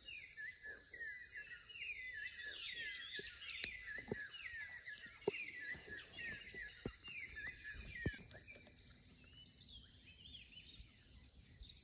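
Birds chirping in a busy chorus of many short, falling chirps that thins out after about eight seconds, with a few sharp knocks in the middle and a steady high-pitched drone underneath.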